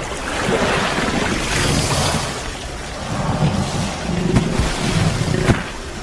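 Water splashing and churning, with wind rumbling on the microphone.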